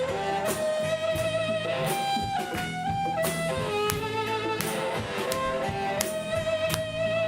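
Live band playing an instrumental passage: a held, wavering lead melody over strummed guitar, with regular percussive hits.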